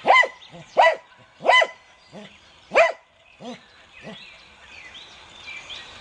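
American cocker spaniel barking at a curled-up hedgehog: short sharp barks, four loud ones in the first three seconds and a few softer ones after, stopping about four seconds in.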